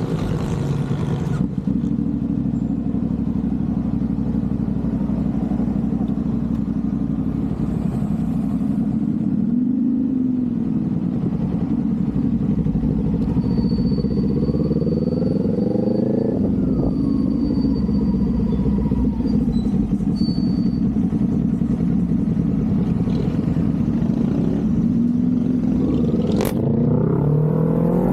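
Kawasaki Z400 parallel-twin engine and exhaust while riding, running steadily with the revs rising and falling several times as the throttle is worked.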